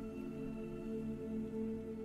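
Soft ambient background music of sustained tones that shift slowly.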